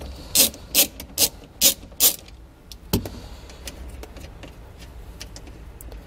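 Socket ratchet clicking as it turns a 12 mm flange nut off a car battery's positive terminal: five quick clicking strokes in the first two seconds, a single sharp click about three seconds in, then only faint ticks.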